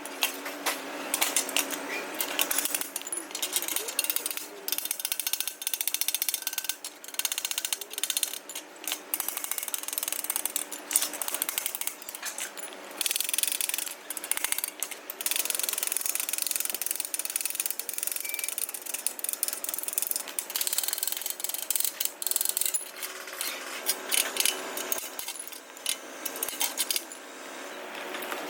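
Metal tools knocking and clicking in a rapid, irregular clatter, thinning out near the end.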